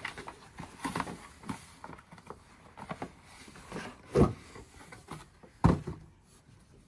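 Cardboard boxes being handled and set down on a wooden table: scattered rustles and light knocks, with two louder thumps, the first about four seconds in and the second a second and a half later.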